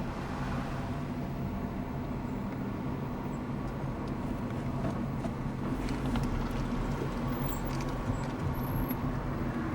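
A car's engine and tyre noise, heard from inside the cabin while driving: a steady low hum.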